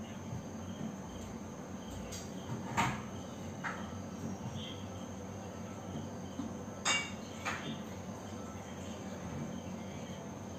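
A few sharp clicks and taps of fingers handling and pressing glued paper cut-outs onto a sheet of paper, the loudest about seven seconds in, over a steady background hiss with faint, evenly repeated high chirps.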